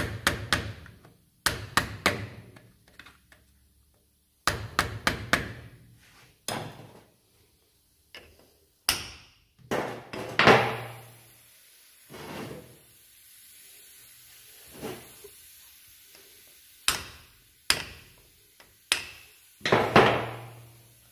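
Hammer blows on a screwdriver held against a Range Rover Classic's front hub, metal on metal: quick groups of three or four sharp strikes at first, then single knocks further apart.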